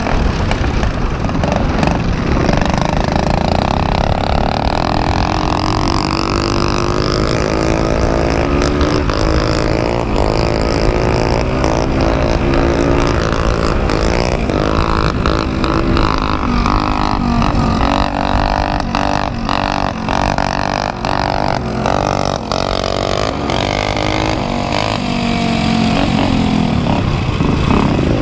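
Small single-cylinder four-stroke engine of a vintage Honda XR100 dirt bike, heard from the bike itself while racing. It revs up repeatedly and drops back at each gear change or on closing the throttle. Wind and rough-track noise run underneath, with a run of sharp knocks around the middle.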